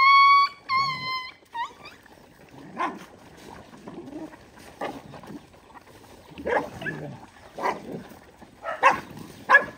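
A pack of dogs jostling over food. A high-pitched whining yelp is held through the first second, then short yips come every second or so, bunching together near the end.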